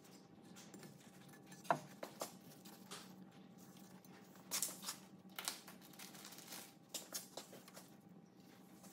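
Faint rustles, clicks and scrapes of gloved hands handling small parts and a pick tool on a cast clutch housing, with a short squeak nearly two seconds in, over a steady low hum.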